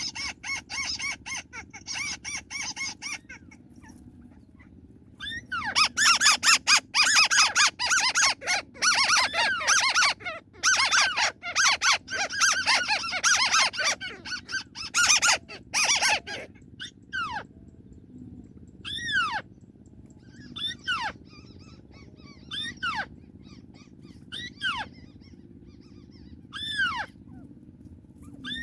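White-browed crake calls: a loud, rapid chattering series that runs for about ten seconds, then single downward-slurred notes repeated about every two seconds.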